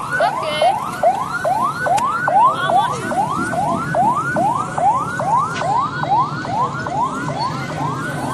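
Electronic siren in a fast yelp, its pitch sweeping up again and again, about two and a half times a second, over a low steady rumble.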